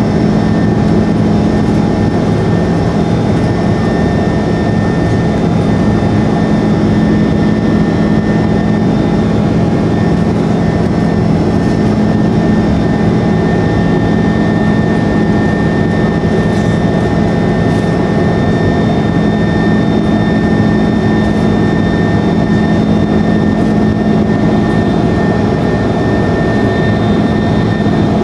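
Airbus A330-200 turbofan engines running at climb power, heard from inside the cabin beside the wing. A steady, loud rush of engine and airflow noise with a few constant whining tones, unchanged throughout.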